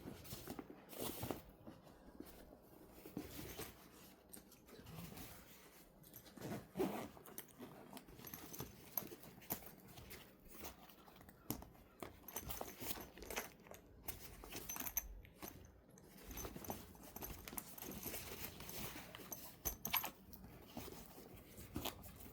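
Handling noise from unfolding and setting up a fabric backpack pet carrier: irregular rustling of fabric and mesh with scattered light clicks and knocks.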